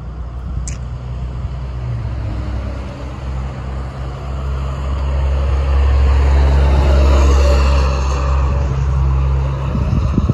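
A motor vehicle's engine running close by: a deep, steady sound that grows louder through the middle and stays strong until it cuts off suddenly at the very end.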